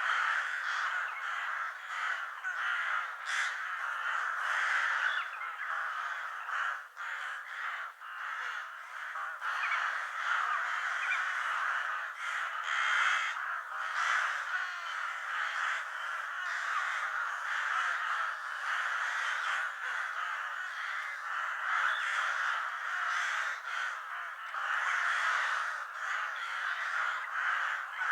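A flock of crows cawing continuously, many calls overlapping into a steady din.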